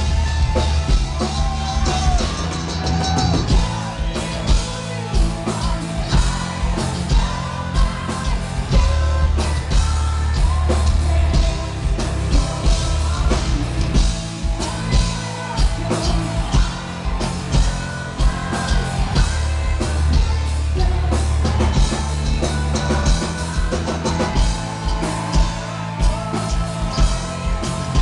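Gothic metal band playing live and loud: distorted guitars, bass and pounding drum kit, with sung vocals over the top.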